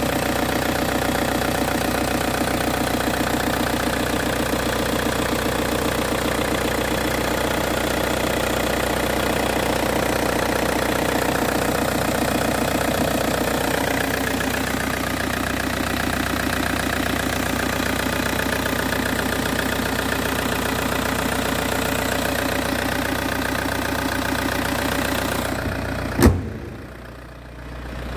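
An engine idling steadily with an even, low pulse. Near the end comes one sharp knock, after which the engine sound is muffled for about two seconds.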